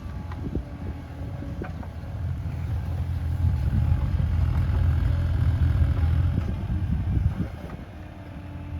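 Bobcat E37 compact excavator's diesel engine and hydraulics working, the engine loading up from about two seconds in and easing off near the end, with a few light knocks.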